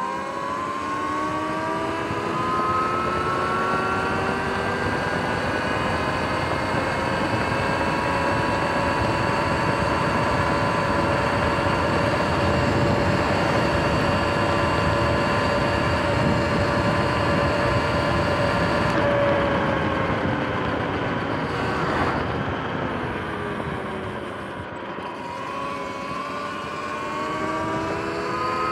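Sur-Ron X electric dirt bike's motor and chain drive whining while riding. The pitch rises as it accelerates at the start, holds steady while cruising, falls as it slows about two-thirds of the way in, then climbs again near the end. The chain and sprockets are freshly replaced.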